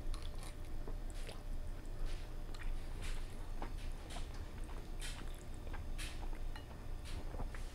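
Close-miked chewing of a mouthful of creamy fettuccine: wet, squishy mouth sounds with irregular small smacks and clicks.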